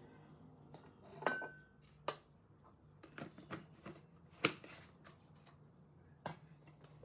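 A handful of light clicks and knocks from kitchen utensils and containers handled while seasoning, one with a brief ringing clink about a second in, over a steady low hum.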